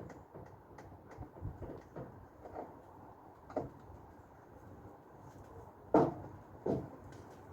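Scattered knocks and clunks of metal and plastic parts being handled while a dishwasher is taken apart. The two loudest clunks come close together about six seconds in.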